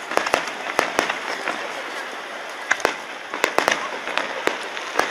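Aerial firework shells bursting in quick, irregular succession: sharp bangs and cracks, thickest near the start and again in the second half, with a short lull in between.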